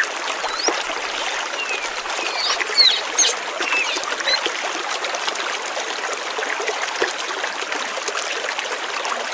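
Flowing water running steadily, a stream-like trickle, with birds chirping: a cluster of short, quick chirps in the first half, then only the water.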